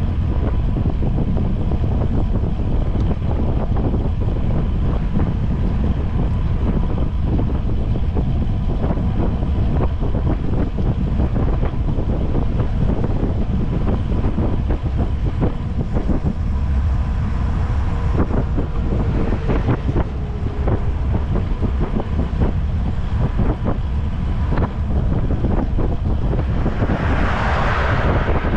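Heavy wind buffeting on the microphone of a moving bicycle, a steady low rumble. Near the end a pickup truck overtakes, its road noise swelling up over the wind.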